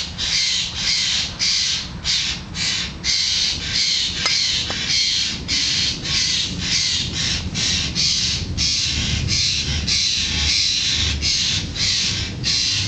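A bird's harsh, rasping calls repeated about two to three times a second without a pause.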